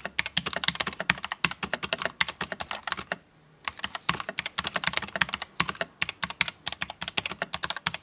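Royal Kludge RK84 mechanical keyboard with red linear switches being typed on at a steady speed: a dense run of key clacks, with a brief pause about three seconds in.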